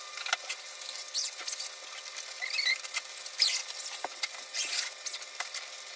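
Zipper on the fabric grow-tent cover of an AeroSpring hydroponic tower being pulled closed in a series of short zipping strokes, with a few small squeaks.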